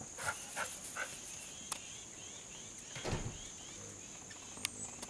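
Steady high-pitched drone of an insect chorus, with a few short sharp sounds in the first second and a louder low sound about three seconds in.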